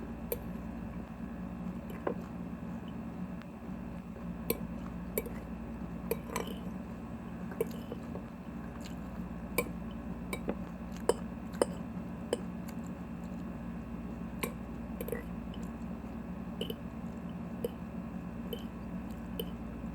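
Close-up chewing of crunchy kale chopped salad, moist mouth sounds with irregular sharp clicks and crunches over a steady low hum.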